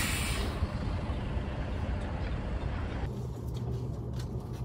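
Steady outdoor traffic noise beside parked coach buses. About three seconds in it cuts to the low, steady hum of a coach bus heard from inside its cabin, with a few faint clicks.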